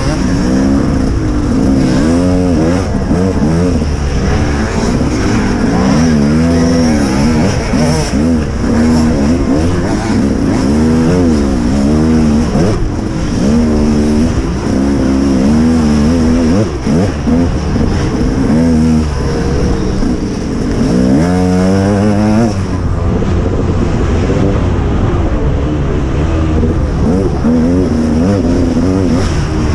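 Motocross bike engine revving hard under racing throttle. Its pitch rises and falls over and over, every second or two.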